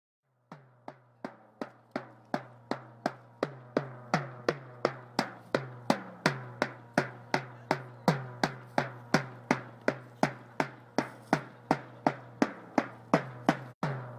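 A drum beaten in a steady, even rhythm, a little under three beats a second, each beat ringing with a low tone; it fades in over the first few seconds.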